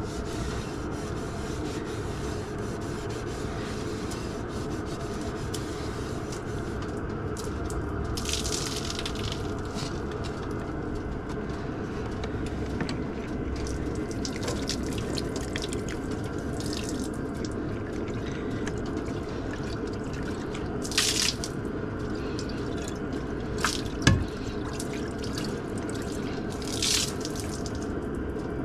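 Water running and splashing, with three short louder gushes and a sharp click near the end.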